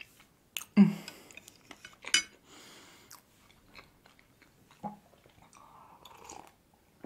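Close-miked chewing of soft layer cake, with wet mouth clicks and lip smacks, the loudest just under a second in. Near the end comes a soft sip from a mug.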